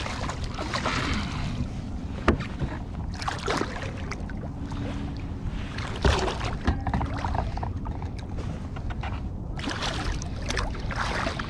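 Striped bass splashing and thrashing at the water's surface beside a kayak as it is landed by hand, in several bursts, over a low wind rumble on the microphone.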